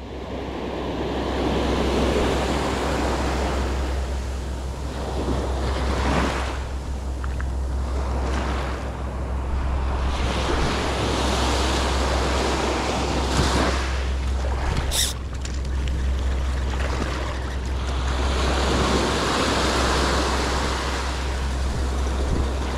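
Ocean surf breaking and washing up the beach, swelling and fading every few seconds, with wind rumbling on the microphone. A brief high-pitched sound cuts through about fifteen seconds in.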